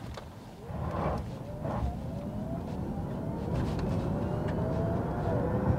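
Nissan Ariya front-wheel-drive electric SUV accelerating hard from a standstill in sport mode: a thin electric whine rising in pitch over road and tyre noise that grows steadily louder.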